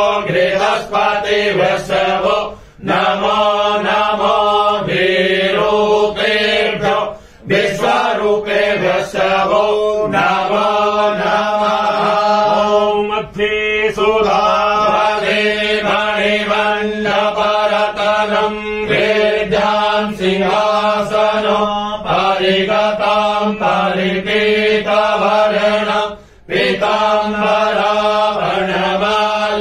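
Men chanting a Hindu mantra, a continuous sung recitation broken only by a few brief pauses for breath.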